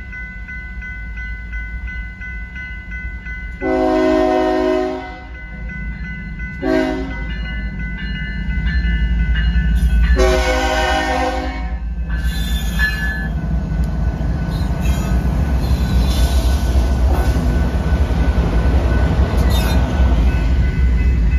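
Diesel locomotive air horn sounding at a grade crossing: a long blast about 4 s in, a short one about 7 s in, and a long one at about 10 s, ending the standard long-long-short-long crossing signal, over the crossing's warning bell. The locomotives then rumble past close by, their engines and wheels growing loud.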